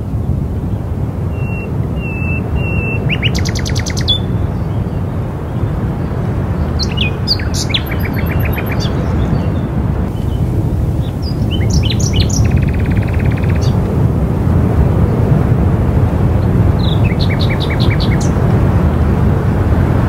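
Wind blowing with a steady low rush that grows slightly louder past the middle. Over it, several birds chirp and trill in short, scattered calls a few seconds apart.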